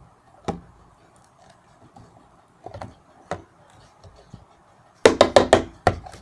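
Soft slime being squeezed and handled, giving scattered sharp clicks and pops, with a quick run of loud clicking about five seconds in.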